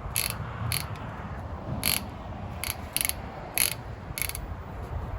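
Ratchet clicking in short, unevenly spaced bursts, about seven over the few seconds, over a steady low hum, while a piston is being fitted with a ring compressor.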